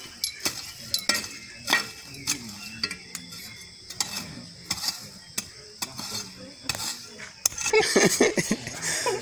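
Garden hoe chopping and scraping into weedy soil: irregular knocks and scrapes of the metal blade, about one or two a second. A louder stretch of other sound comes in near the end.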